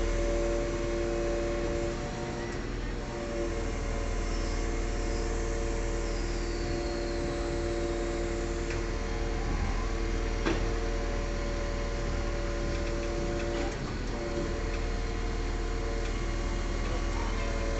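Truck-mounted crane's engine and hydraulic drive running steadily: a constant whine over a low hum, briefly dipping about two seconds in and again near fourteen seconds, with a single click about ten seconds in.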